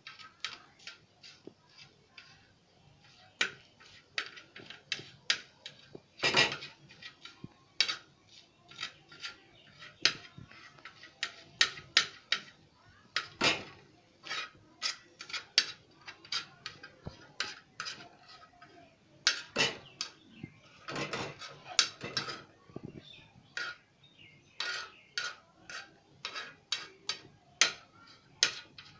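A metal knife repeatedly striking and scraping a pan while chopping cooked chicken into fine pieces: sharp, irregular clicks and knocks, about one or two a second, coming in uneven clusters.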